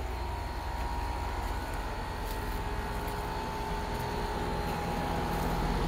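Outdoor air-conditioner condenser unit running: a steady mechanical hum with a faint, even tone over it, growing slightly louder near the end.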